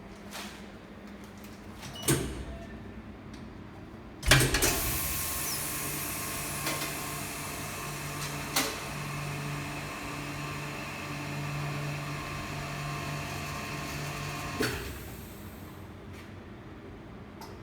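Vacuum packing machine running a cycle: a knock about two seconds in, then about four seconds in the vacuum pump starts abruptly and runs steadily with a low hum for about ten seconds, stopping with a click.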